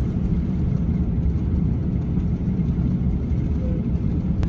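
Steady low cabin rumble of an Airbus A350-900 airliner taxiing, its Rolls-Royce Trent XWB engines running at low power.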